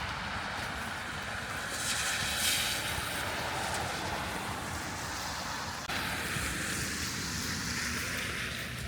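Steady rushing outdoor noise, wind on the microphone, with a brighter swell about two seconds in and an abrupt change about six seconds in.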